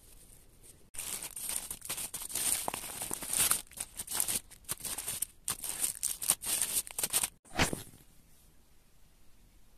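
Packaging being torn open and crinkled by hand: a dense run of tearing and rustling that starts suddenly about a second in and breaks off near the end with one last short rustle.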